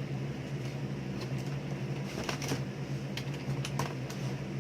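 Scattered light clicks and rustles of bike packaging being handled, over a steady low hum.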